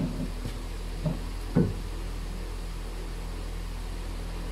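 Two knocks of wooden workpieces being handled, a faint one about a second in and a stronger one half a second later, over a steady low hum.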